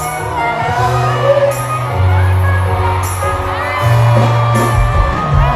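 Live band music with held electric bass notes under a singing voice, heard from within a cheering crowd.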